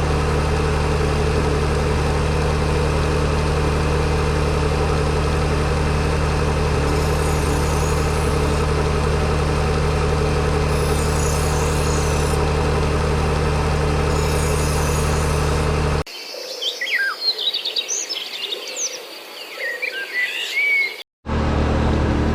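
A machine running with a steady, even hum for about sixteen seconds. It cuts off suddenly to birds chirping for about five seconds, then the hum comes back near the end.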